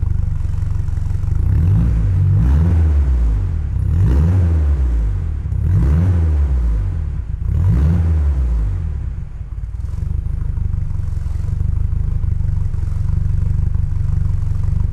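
1978 BMW 2002 turbo's turbocharged 2.0-litre four-cylinder engine heard through its exhaust, revved four times in quick blips about two seconds apart, each rising and falling back. It then settles into a steady idle.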